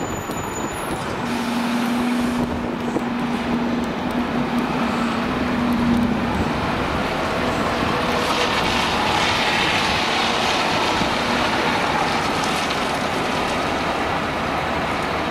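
A double-decker bus's diesel engine running as it drives slowly past and pulls away, with a steady hum over the first few seconds and rising road noise towards the middle.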